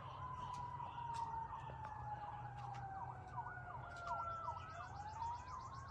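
Faint emergency-vehicle sirens: one slow wail falling in pitch for several seconds and turning upward about five seconds in, overlapped midway by a fast rising-and-falling yelp.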